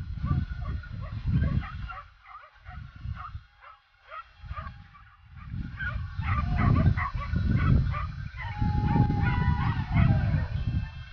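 Hunting dogs barking and yelping in quick, repeated calls as they work the scrub on a wild boar drive, over low gusty rumbling on the microphone.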